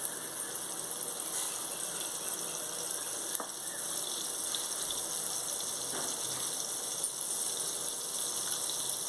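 Butter sizzling as it melts and bubbles in a nonstick frying pan: a steady hiss with a few faint pops.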